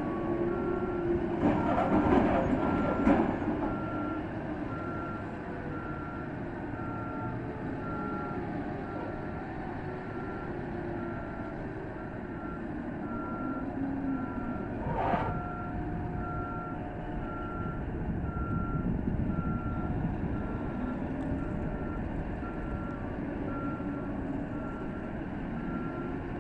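Reversing alarm beeping steadily, about once a second, over the steady rumble of heavy mining machinery: a haul truck backing up. A burst of crashing noise comes about two seconds in, and a short sharp noise near the middle.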